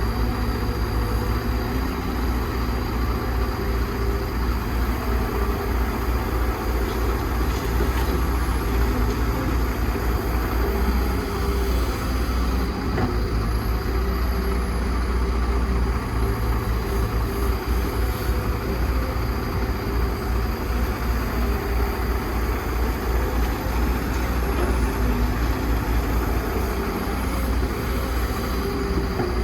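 Heavy excavator's diesel engine running steadily: a deep, continuous rumble that swells and eases slightly.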